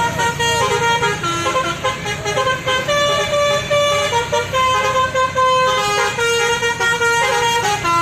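Multi-tone telolet basuri horn on a tour bus playing a melody: a run of held notes stepping from pitch to pitch, stopping abruptly at the end.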